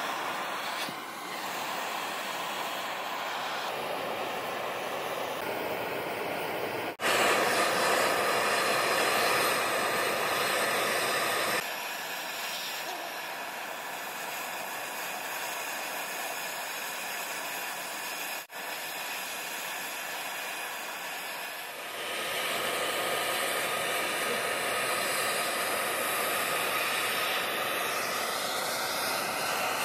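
Handheld gas torch hissing steadily as its flame melts scrap gold in a crucible. The hiss jumps abruptly louder or softer a few times.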